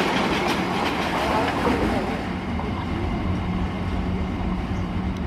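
Freight train's open-top wagons rolling past at speed, their wheels clicking rapidly over the rail joints. About two seconds in, the clatter fades as the end of the train goes by, leaving a steady low rumble.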